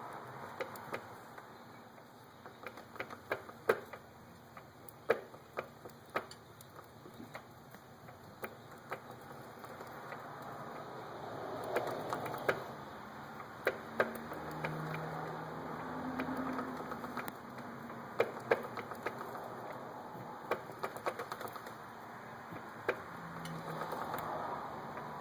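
Irregular ticking and clicking from the drive chain of a 2006 Yamaha YZF-R1 motorcycle, some ticks louder than others.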